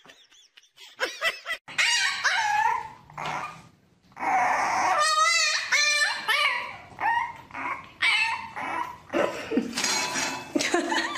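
Dog whining and yipping in a run of short pitched calls that rise and fall, with a rapidly wavering cry about five seconds in.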